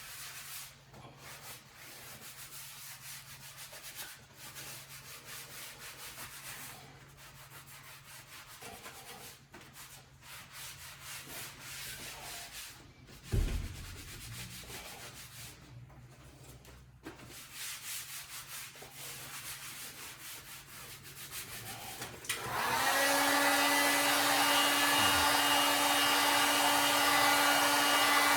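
Irregular hand rubbing or sanding strokes on the vinyl floor repair, with one thump about halfway through. Near the end a hair-dryer-type hot-air blower switches on and runs steadily, a loud hiss with a steady motor hum.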